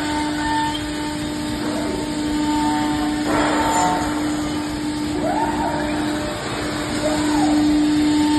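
CNC machine running: a steady motor hum over a noisy background, with short whines that rise and fall three times and a brief burst of noise about three seconds in.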